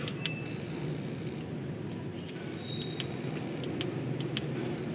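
Several small, sharp clicks over a steady low background hum: the side button of a Manker ML03 flashlight being pressed.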